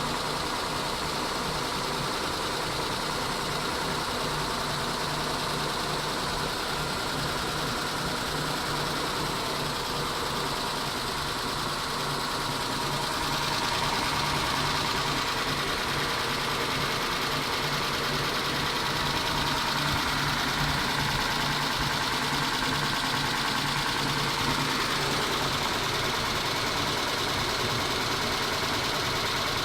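Mitsubishi 6G72 V6 idling with a repetitive tapping of the kind blamed on the hydraulic lash adjusters, though the owner doubts whether they are the cause. It gets a little louder about halfway through.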